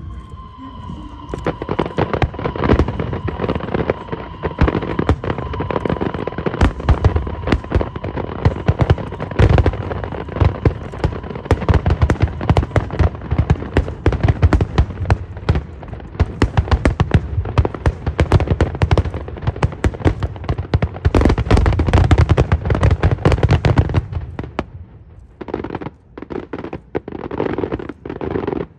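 Fireworks barrage: a dense, rapid volley of bangs and crackles, with a steady high whistle over the first ten seconds or so, thinning out to scattered bangs over the last few seconds.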